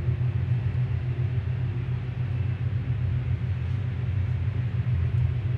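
Ice machine running with a steady low hum while it fills its trays with water at the start of an ice-making cycle. The strange noise it had made earlier is absent: the machine is running normally.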